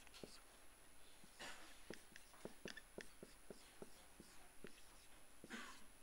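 Faint taps and short scratchy strokes of a marker writing on a whiteboard, coming irregularly, with two longer strokes about a second and a half in and near the end.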